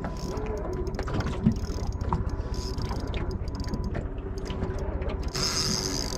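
Spinning reel being wound in quick turns, its gears ticking rapidly, under the load of a hooked fish. A high hiss comes in near the end.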